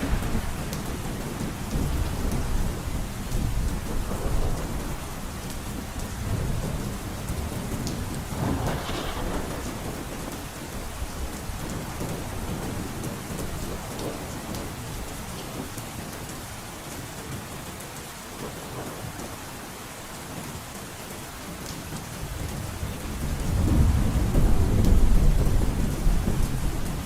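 Heavy rain drumming steadily on a roof, with deep rolling thunder rumbles that ease off midway and swell loudest near the end.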